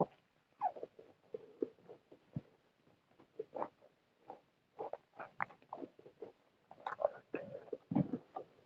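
A person chewing food close to the microphone, with irregular wet smacks and clicks of the mouth, busiest near the end.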